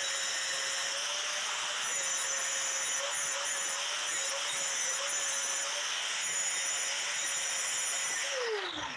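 Angle grinder running at steady speed with a hissing, grinding noise as it cuts away the bent-over steel tabs of a door check strap. Near the end the grinder is released and its whine falls in pitch as it spins down.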